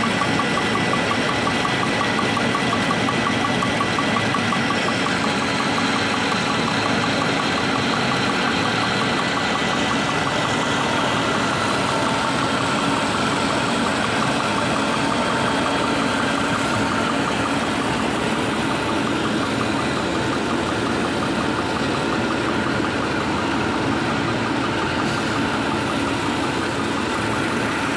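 Fully automatic birthday-candle-making machine running steadily, with a fast, even rhythm from its moving mechanism.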